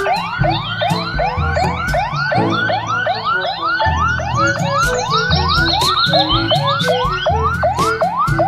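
Police car siren on a fast yelp: each whoop rises sharply and drops away, about three a second, without a break.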